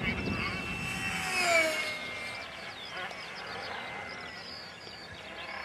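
Electric motor and propeller of a HobbyKing AT6 Texan FunFighter RC plane on a 4S pack whining overhead, its pitch falling as it passes about a second and a half in, then fading a little.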